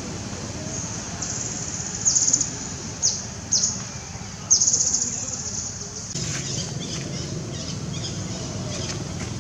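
Outdoor ambience: a steady high-pitched shrill drone that swells into four loud surges between about two and five seconds in, each dipping a little in pitch as it fades, over a low rumble. A few short chirps follow near the end.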